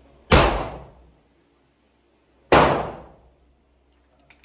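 Two rifle shots about two seconds apart, each ringing out with a short echo off the range's walls and roof, then a light click near the end.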